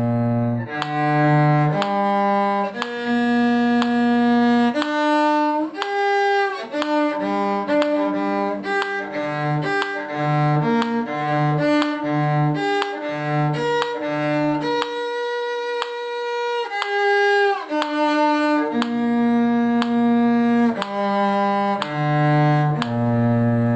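Bowed string instruments playing a brisk tune, low cello-range notes under higher violin-range notes, with a stretch of short repeated low notes in the middle.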